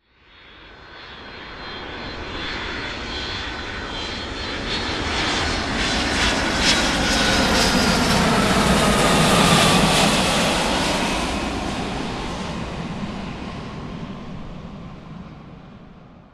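Airplane flying by: its engine noise swells from nothing, is loudest about ten seconds in, then fades away, with a tone dropping in pitch as it passes.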